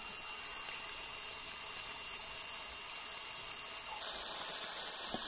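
Water from a borehole pump's discharge hose pouring and splashing steadily onto bare soil, louder and hissier from about four seconds in. The pump is flushing the new borehole, running until the sand clears from the water.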